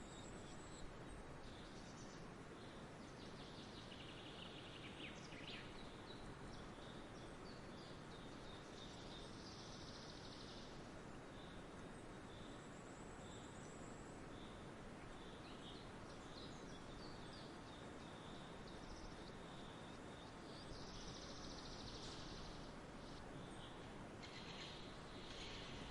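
Faint, steady background hiss with scattered short, high chirps.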